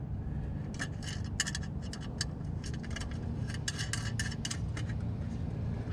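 Irregular light clicks, taps and scrapes of an aluminium MGP caliper cover being shifted and seated by hand over a Brembo brake caliper, over a steady low background hum.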